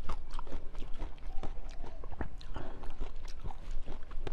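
Close-miked biting and chewing of a peach-shaped jelly: wet mouth sounds with a dense, irregular run of small sharp clicks and crackles.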